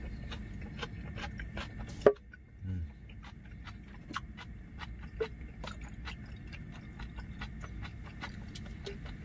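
Steady low drone of a generator running next to the van, with soft regular ticks about two or three times a second. A single sharp knock about two seconds in, followed by a short low thud.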